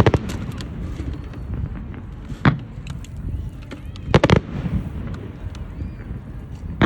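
Fireworks going off: a sharp bang at the start, another about two and a half seconds in, a quick cluster of cracks about four seconds in and one more at the end, over a steady low rumble.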